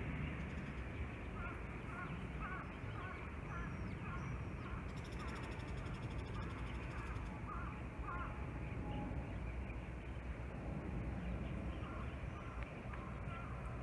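Steady low rumble of a four-engined jet airliner passing high overhead. A bird calls repeatedly over it, about a dozen short calls roughly two a second, starting a second or two in and stopping about halfway through.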